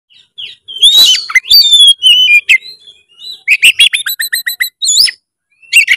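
Oriental magpie-robin (kacer) singing loudly and continuously: gliding whistles and harsh notes, then a quick run of repeated notes at several per second and more rising whistles.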